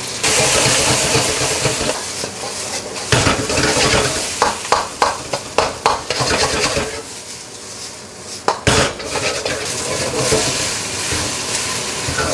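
Fried rice sizzling in a hot oiled wok while a metal wok ladle stirs and scrapes through it. Sharp clinks of the ladle against the wok come in a cluster a few seconds in and again once just past the middle.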